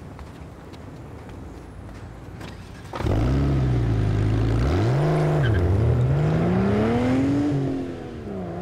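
A red Ford Mustang's engine starting with a sudden loud burst about three seconds in, revving up and down twice, then rising in pitch as the car pulls away and dropping off near the end.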